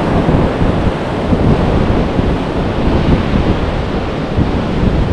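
Surf breaking and washing on a beach, mixed with wind buffeting the microphone in a loud, uneven rumble.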